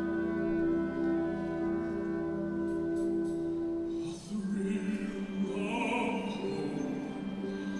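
Seasonal choral concert music: a long, steady held chord cuts off about four seconds in, and singing with vibrato then begins.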